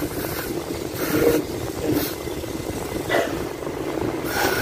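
Aerosol throttle-body cleaner sprayed in several short hissing bursts, about one a second, into the air passages of an idle air control valve, over a steady background drone.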